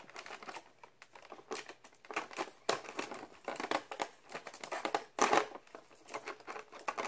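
Fingernails picking and peeling sealing tape off a thin clear plastic package. The plastic crinkles and crackles in irregular bursts, with a louder crackle about five seconds in.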